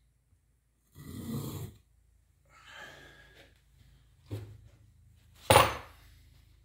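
A person's heavy breath about a second in, catching his breath after holding it while concentrating on sharpening. Then a faint rustle, a short knock, and a louder sharp thump near the end.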